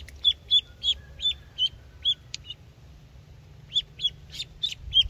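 Live duckling used as snakehead bait, peeping loudly and repeatedly: about a dozen short, sharp, high peeps in two runs with a pause of about a second in the middle.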